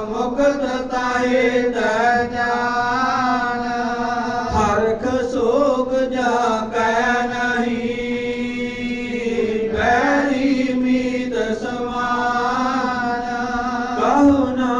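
Sikh Gurbani being chanted by a single voice in long, melodic phrases with drawn-out held notes.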